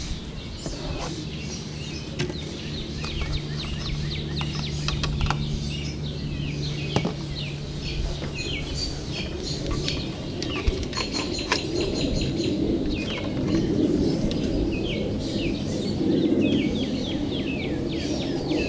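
Songbirds chirping rapidly and continuously, with a steady low hum underneath that stops about seven seconds in.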